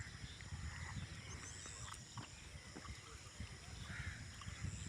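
Insects chirping steadily in high-pitched trills with fainter scattered chirps, over a low uneven rumble.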